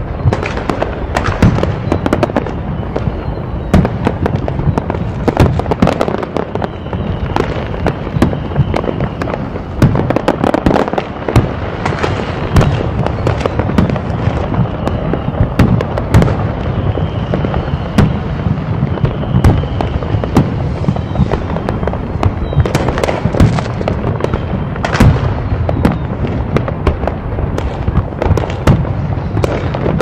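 Fireworks display in a dense, continuous barrage: many shells bursting in quick, irregular succession, the bangs overlapping, with a faint high whistle now and then.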